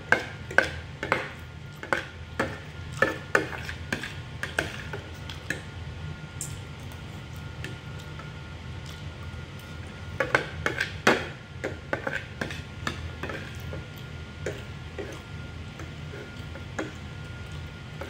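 Metal spoon and fork clinking and scraping against a plate while eating. There is a quick run of clicks in the first few seconds, a lull, then another cluster about ten seconds in.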